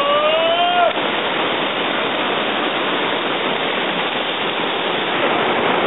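Fast river rapids rushing steadily over rocks. Near the start a child's long high call, rising slightly in pitch, carries over the water and stops about a second in.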